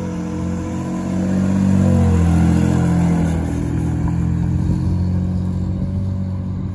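Lexus IS300's 2JZ-GE inline-six running through a cat-back exhaust as it warms up after a cold start, its note swelling and rising slightly about two seconds in.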